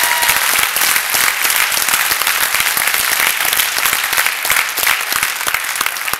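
A large audience applauding loudly, with dense clapping that starts to die down near the end.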